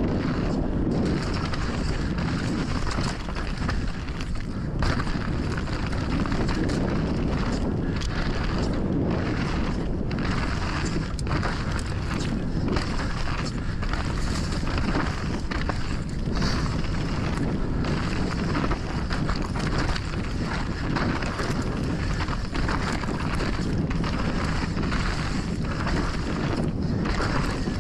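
Mountain bike descending a loose loam trail at speed: a steady rush of wind buffeting the microphone over the tyres in loose dirt, with frequent clicks and rattles from the bike.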